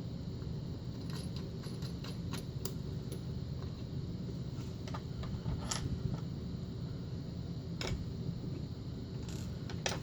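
Scattered small metallic clicks and clinks of a Schlage pin-tumbler lock cylinder being taken apart by hand, a tool pressing down its small retaining pin, over a steady low hum.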